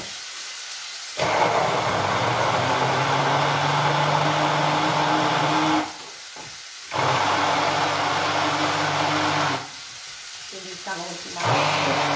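Electric blender puréeing artichoke stems with vegetable broth, its motor switched on in three bursts of a few seconds each with a steady whirring hum. A pan sizzles quietly in the pauses between bursts.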